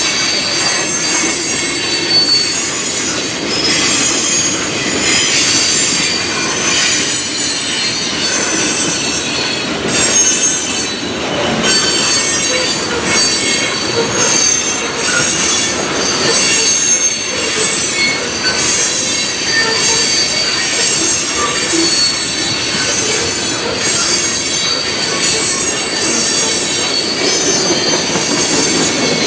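Freight train of tank cars and covered hoppers rolling past, steel wheels on the rails with a steady high-pitched squeal.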